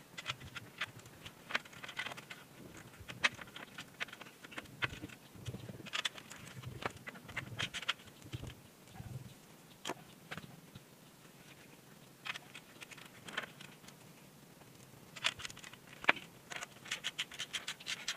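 Gloved hands handling and rubbing a Harley-Davidson Sportster's stock muffler: irregular scrapes, rubs and sharp light clicks, some coming in quick clusters.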